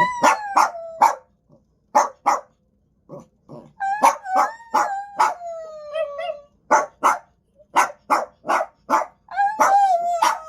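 Dog vocalizing on cue, trying to 'say I love you': three long howling calls that slide down in pitch, mixed with many short, sharp barks.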